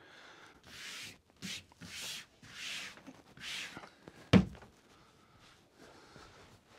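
Hands rubbing and pressing a cloth strip flat onto fabric laid on a workbench, five short swishes, then a single thump about four and a half seconds in.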